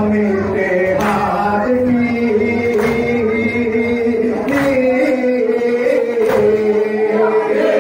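Men chanting a nouha, a Shia mourning lament, with a lead voice carried over a microphone. Hands slap chests in unison (matam) in a steady beat about once a second.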